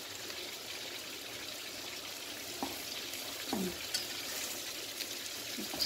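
Food cooking on a stovetop: a steady bubbling, sizzling hiss from a pan at a rolling boil and a pot of eggs in tomato, with a few light knocks of a plastic spatula stirring the pot.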